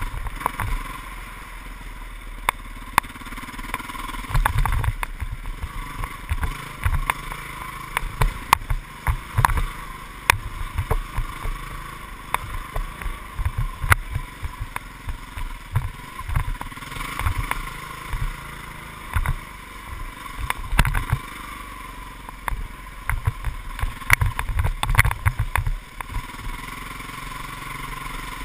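Dirt bike engine running steadily while riding a rough trail, with frequent low thumps and knocks as the bike and camera bounce over the ground.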